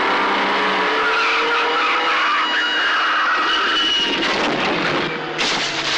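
Car-chase soundtrack from a film: car engines running hard, with tyres squealing in long drawn-out tones. A sudden louder burst of engine noise comes about five seconds in.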